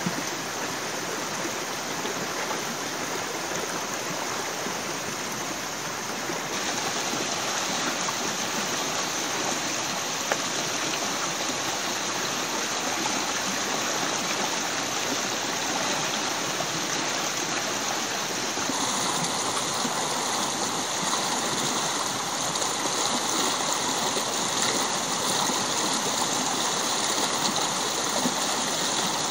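Shallow mountain stream running over rocks, a steady rushing and gurgling of water. The sound shifts abruptly twice, and in the last third it is a little louder and brighter, the water tumbling down a small cascade.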